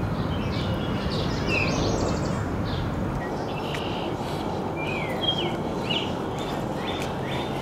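Outdoor evening ambience: a steady low background noise with small birds chirping and calling over it, short falling and rising notes repeated throughout.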